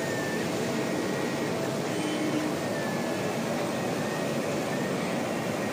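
Large-format laser cutting machine running while it cuts printed fabric: a steady rush of machine and air noise, with a faint high whine that wavers in pitch now and then.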